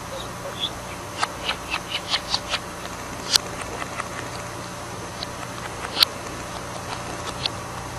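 Budgerigar chattering in short high chirps, with a quick run of them a second or so in and a few scattered ones after. Two sharp clicks stand out, about three and a half and six seconds in, over a steady low hum.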